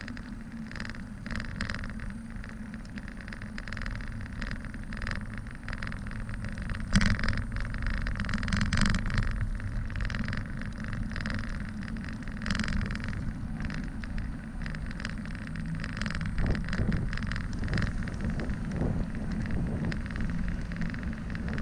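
Riding noise of a bicycle on a cracked asphalt path: wind rushing over the microphone and the hum of the tyres, with a few sharp knocks and rattles from bumps, the loudest about seven seconds in.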